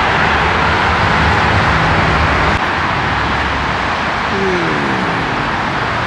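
Steady roar of road traffic, with a short falling tone from a passing vehicle a little past the middle.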